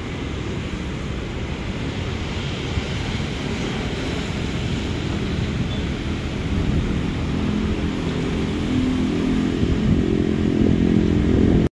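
Wind noise on the microphone over traffic, with a motor vehicle's engine hum growing louder through the second half, then cut off abruptly near the end.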